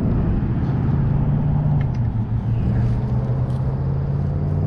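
Steady low engine hum whose pitch drifts slowly downward, with a few faint high ticks.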